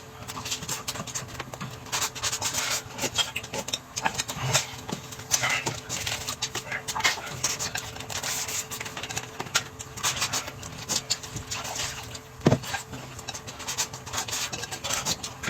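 Close-up eating sounds: irregular chewing, smacking and slurping, with many small clicks.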